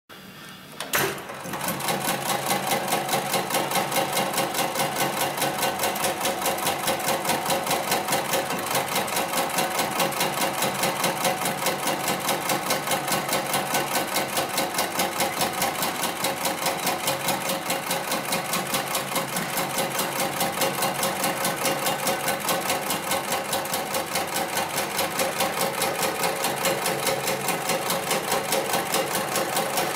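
HIGHTEX 72008 extra-heavy-duty programmable pattern sewing machine running, its needle stitching through layers of synthetic webbing in a rapid, even rhythm of strokes. It starts up about a second in.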